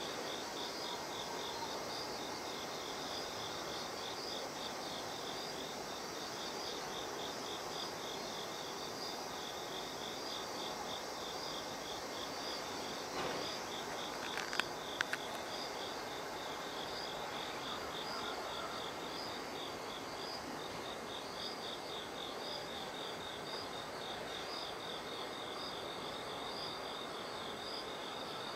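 Insects chirping outdoors in a steady rhythm of short, high-pitched pulses, with a brief break near the middle. Two or three sharp clicks stand out about halfway through.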